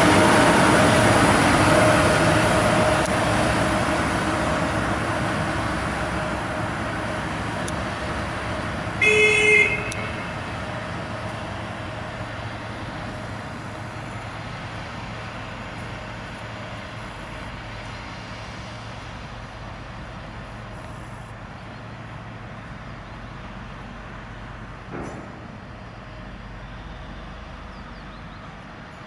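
Diesel shunting locomotive (PKP PLK 6Dh-1) running as it pulls away, its engine fading steadily as it recedes. About nine seconds in there is one short horn blast lasting under a second.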